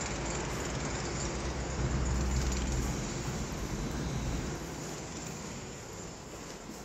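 Steady outdoor background noise, a low rumble with a hiss over it, heaviest for the first three seconds and then slowly fading.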